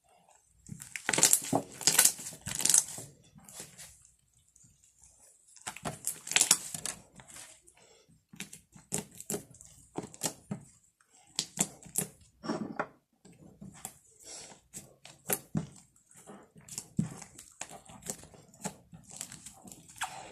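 Slime being squished and worked by hand, giving irregular sticky clicks and crackling pops, in dense clusters early on and then more scattered.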